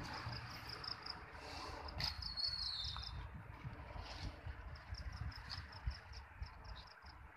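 Insects chirping in a steady run of short high pulses, several a second, with a short falling high note about two seconds in. Wind rumbles on the microphone underneath.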